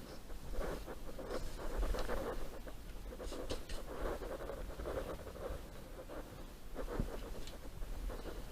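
Irregular scraping and rubbing against a hard surface, in uneven strokes, with a sharp knock about seven seconds in.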